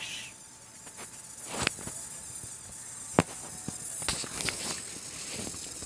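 Roasting chestnuts bursting with sharp pops, about four in a few seconds, the loudest about three seconds in, over a steady high hiss. They are quite liquidy inside.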